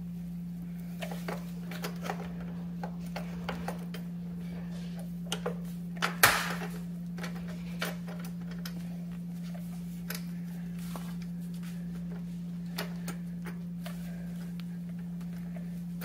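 Scattered light clicks and knocks of metal scooter suspension parts being handled as a coil-over rear shock is fitted into the swing arm, with one louder clatter about six seconds in, over a steady low hum.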